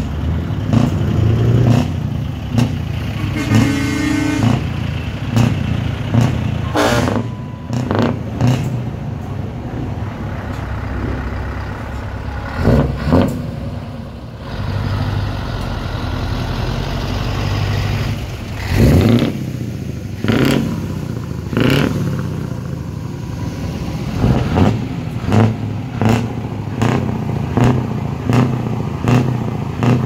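Scania truck diesel engines running through open exhaust pipes as the tractor units pull away, with repeated revving surges. A brief horn blast sounds about four seconds in.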